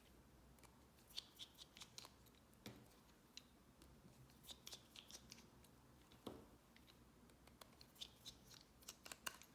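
Faint, irregular light clicks and ticks of a small precision screwdriver and tiny screws being worked on the side screws inside an iPhone 6, with a slightly heavier tap a little after the middle.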